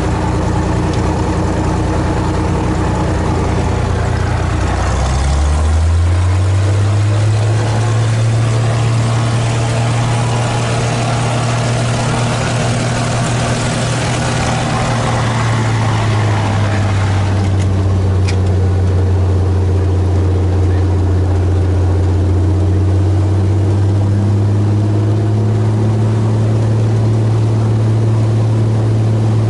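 Helio Courier's Lycoming GO-480 geared six-cylinder engine and propeller running steadily, heard from inside the cockpit. About five seconds in the engine speeds up and the propeller hiss grows, then it eases back to a lower speed around sixteen seconds.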